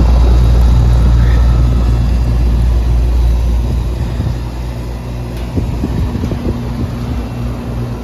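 Residential R22 air-conditioning condensing unit running: the compressor and condenser fan make a steady low hum with a rush of air. The compressor is running again after being jumped with a hard start kit. The hum is loudest for the first four seconds or so, then drops off somewhat.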